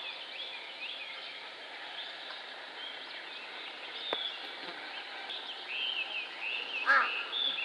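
Small birds chirping and twittering over a steady outdoor hiss. Near the end a single louder call cuts in.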